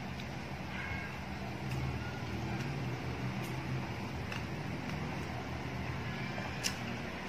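Steady low rumbling hum, with a few faint sharp clicks scattered through it, the clearest near the end.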